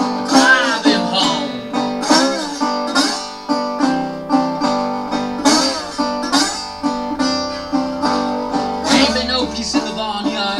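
Metal-bodied resonator guitar played fingerstyle in a slow blues, with a steady run of plucked notes and some notes sliding up and back down in pitch.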